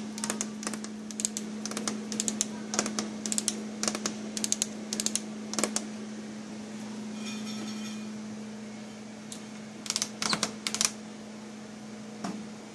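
Irregular light clicking and tapping, with a few louder clicks in quick succession near the end, over a steady low hum.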